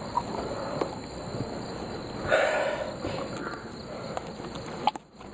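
Crickets chirping in a steady high pulsing trill. Close rustling of a nylon net being handled swells briefly about two seconds in.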